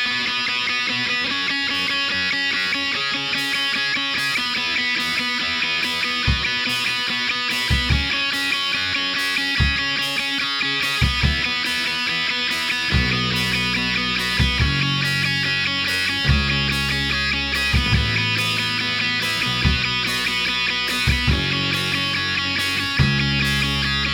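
Rock soundtrack music led by distorted electric guitar, with a heavier bass line coming in about halfway through.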